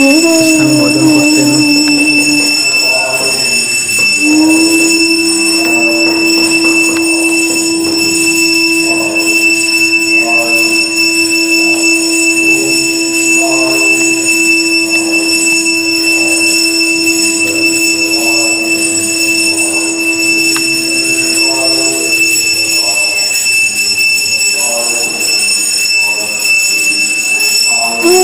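Long held droning notes: one low note sustained for most of the time, with higher notes coming and going above it, over a constant high-pitched whine.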